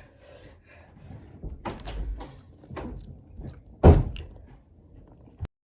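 A few short knocks and thumps, the loudest about four seconds in; the sound cuts out just before the end.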